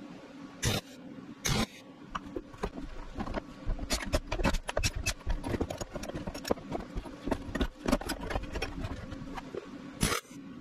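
Stick welder arc crackling in two short tack welds about a second in, then steel chain links and nails clinking and rattling as they are rearranged on a metal workbench, and another short tack weld near the end.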